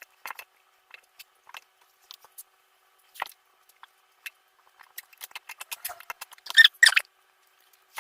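Chopped onion being put into a glass jar: sparse small clicks and taps, with a cluster of louder taps about six to seven seconds in.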